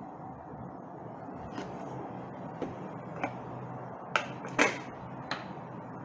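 A handful of light, sharp clicks and knocks, irregularly spaced, over a steady room hiss and hum, as of objects being handled on a table; the loudest knock comes about four and a half seconds in.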